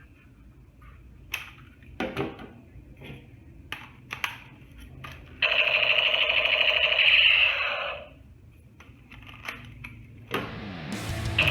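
A plastic toy gun being handled, with scattered clicks and clacks, then its electronic sound effect playing loudly for about two seconds in the middle. Another loud sound starts near the end.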